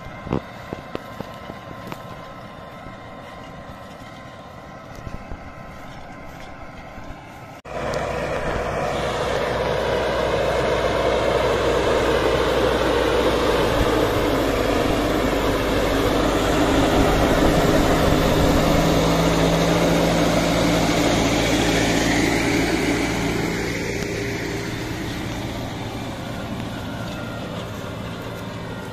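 New Holland TD590 tractor engine running steadily. About eight seconds in, the sound suddenly becomes much louder and fuller, then gradually eases off over the last few seconds.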